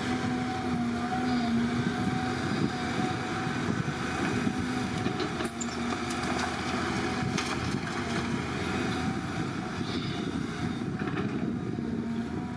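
Excavator's diesel engine running steadily, with a steady low hum and a higher, slightly wavering tone over it.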